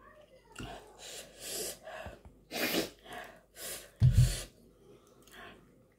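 A woman's sharp, breathy gasps and puffs of breath through the mouth, about seven in quick succession, with a low thump about four seconds in.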